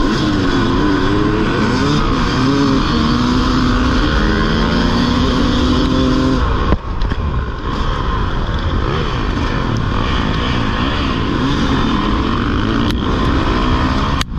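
Dirt bike engine accelerating hard through the gears, its pitch climbing and dropping back at each shift, with other race bikes running close by.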